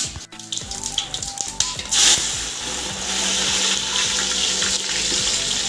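Sliced onions hitting hot oil in a steel pot and sizzling. There is a sudden loud burst of sizzle about two seconds in, which settles into a steady frying hiss.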